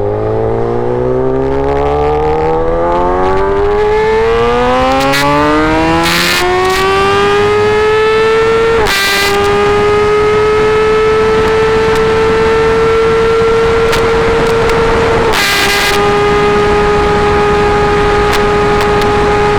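Kawasaki ZX10R's inline-four engine through an SC Project full-system exhaust, accelerating hard: the note climbs steadily for about nine seconds, drops briefly at an upshift, then holds a steady high note. There is a second small dip at another shift about fifteen seconds in.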